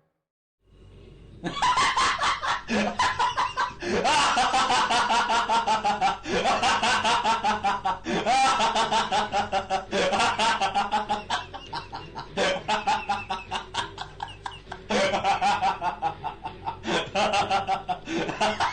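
Meme sound effect of a person laughing hard: long runs of rapid, high-pitched laughter with short breaks between them, starting after a brief silence.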